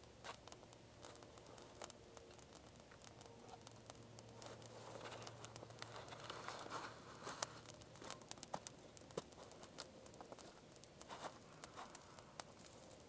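Small twig fire crackling with irregular sharp pops, while handfuls of dry twigs rustle and crackle as they are fed onto it, most in the middle.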